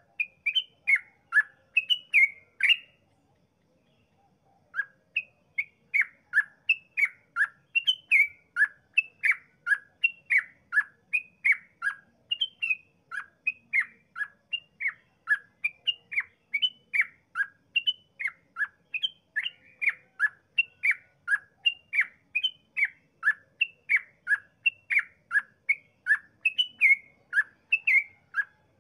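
Yellow-vented bulbul singing a long rolling run of short, sharp chirping notes, about two to three a second. It breaks off briefly a few seconds in, then keeps going without a pause.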